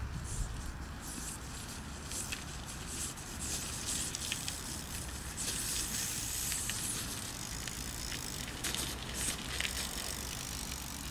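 A small 16-inch BMX rolling along a gravel path: a steady crunch of tyres on grit, with scattered light clicks.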